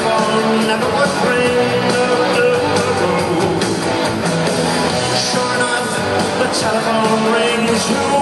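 Live rock band playing, with a male lead vocal over electric guitars.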